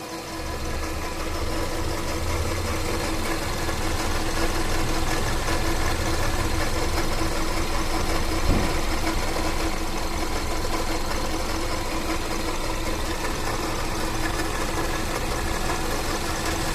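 Toyota 1NZ-FE inline-four engine running steadily at idle with a bad water pump. A single sharp knock about halfway through.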